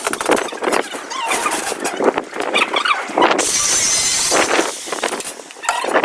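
Many birds chirping and calling at once, short irregular calls overlapping, with bursts of hissy noise.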